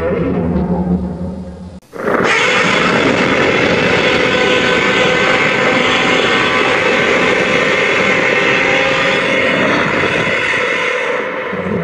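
Monster roar sound effect made from frog croaks mixed with Godzilla roars. A low, deep call fades out, and after a brief break a long, loud, harsh roar full of overtones holds for about nine seconds before tailing off near the end.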